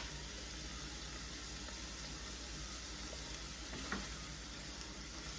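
Chopped broccoli, carrots and onions sautéing in butter in a pan, a steady soft sizzle. One small click about four seconds in.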